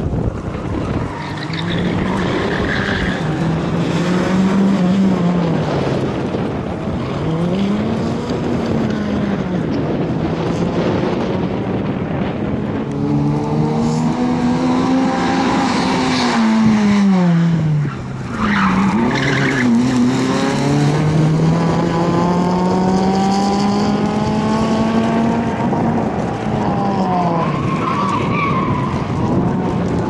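Suzuki Swift rally car's engine revving up and falling back again and again as it is driven hard through a coned tarmac course, with tyres squealing now and then in the turns.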